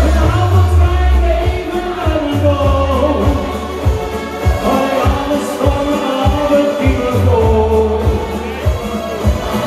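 Pop music with a steady drum beat, sustained bass notes and a sung melody.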